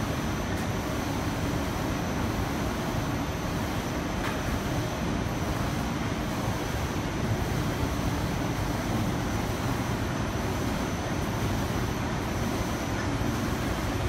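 Automatic pallet stretch wrapper with a top-sheet unit running: a steady mechanical hum and hiss from its drive motors as the overhead frame moves the top film sheet over the wrapped pallet.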